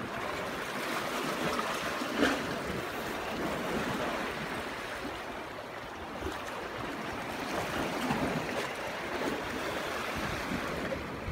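Small sea waves washing against the rocks of a jetty, a steady rush of water, with a brief louder splash about two seconds in.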